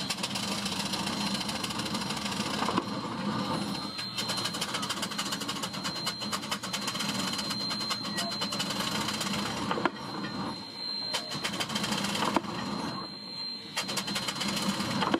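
Railroad pile driver car's machinery running steadily with a rapid ticking chatter and a high steady whine, a few sharp clanks, and people talking over it.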